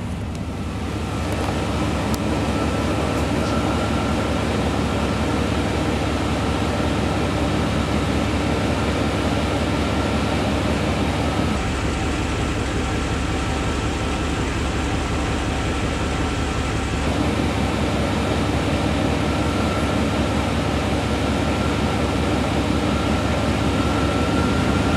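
GM pickup's drivetrain running in four-wheel-drive high with the truck on jack stands: the engine turns the wheels at a slow, steady speed while the NP241-C transfer case's oil pump is primed after a fluid change. It is a continuous, even mechanical hum with a steady whine over it.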